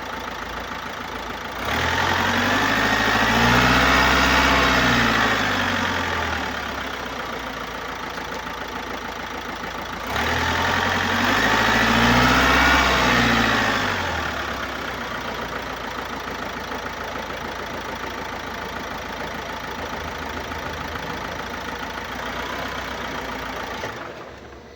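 Opel Astra K's 1.6-litre diesel engine (B16DTH) idling and revved twice, about two seconds and ten seconds in. Each time the revs climb for a couple of seconds and fall back to idle. The noise is the sign of a leak in the intake system and defective swirl flaps, by the seller's diagnosis.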